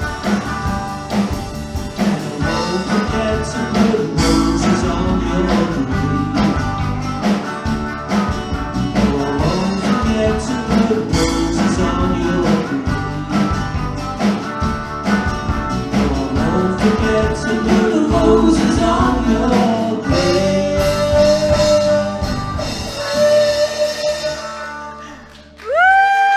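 Live band playing the closing bars of a country-rock song on acoustic and electric guitars, bass and drum kit. The full band drops out around twenty seconds in, leaving a few held notes, and a single long high note starts just before the end.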